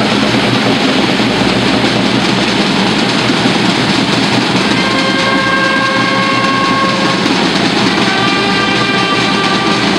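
Procession band of drums and brass playing: a loud, continuous drum roll from the snare drums over bass drum, joined about five seconds in by brass instruments holding long notes, and again near the end.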